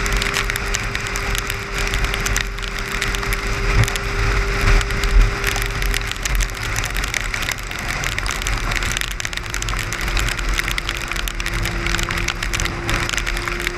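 Rain spattering on a moving car, heard from inside, with fine crackly ticks of drops over the steady drone of tyres and engine on the highway. A steady hum runs through it, sagging slightly partway through and climbing again near the end.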